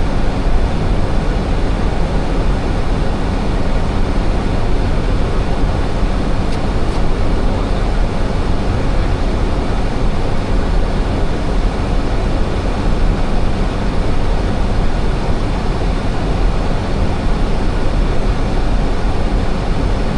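Steady cockpit noise of an Airbus A320 in flight: an even rush of airflow with engine hum, unchanging throughout.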